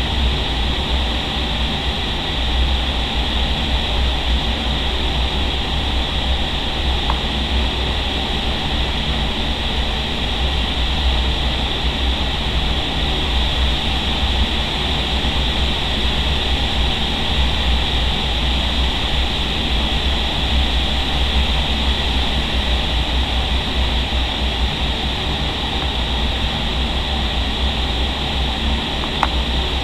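Steady rush of high-speed air in a vertical indoor skydiving wind tunnel, with a deep rumble from its fans, heard from inside the flight chamber with the airflow buffeting the microphone.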